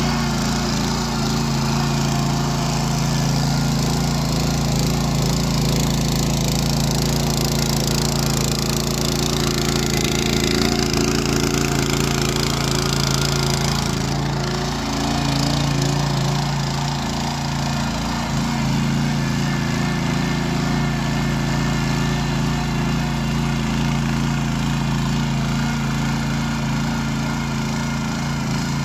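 Walk-behind rotary tiller's engine running steadily under load as the tines churn through garden soil, a constant low drone with a slight shift in tone about halfway through.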